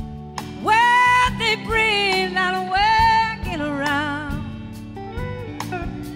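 Live blues-rock band playing, with a high lead line of long held, bending notes with vibrato over bass and drums. The lead starts about half a second in with one long note and then moves through shorter wavering phrases.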